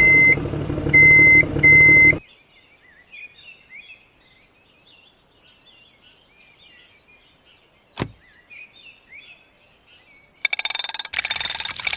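A small motor whirring with three short, high electronic beeps, then several seconds of faint bird chirping. A single sharp click comes partway through, and a loud rushing noise starts near the end.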